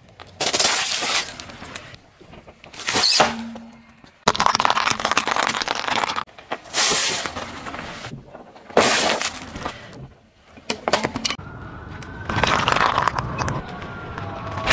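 A car tyre rolling over and crushing a series of objects: plastic containers, candy and grapes cracking and crunching under the weight. It comes as a run of separate bursts with short pauses between them.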